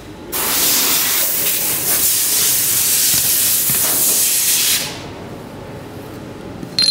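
Pressurised air or gas hissing out steadily for about four and a half seconds, then stopping. Near the end, a single sharp click with a brief ringing tone.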